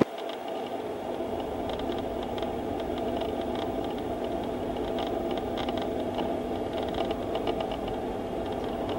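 Jet airliner engines running steadily: an even hum and whine holding one pitch, with faint crackle on top.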